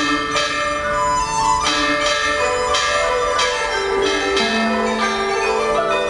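Traditional Chinese music on bronze chime bells (bianzhong), struck every second or two with each note ringing on, over held melody notes.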